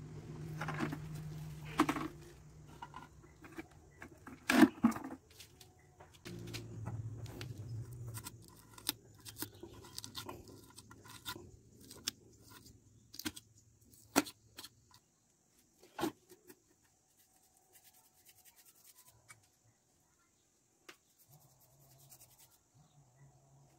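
Cast cement flower pot being worked free of its rigid plastic mould: knocks, crackles and scrapes, the loudest about two and five seconds in. Then scattered scrapes and taps of a metal point at the bottom of the cement pot, dying away to almost nothing after about seventeen seconds.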